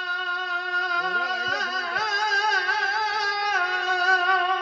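Male voices singing an Urdu naat through a PA system, holding out a long wordless note at a steady pitch. About a second in, a lower voice joins with a wavering melodic ornament.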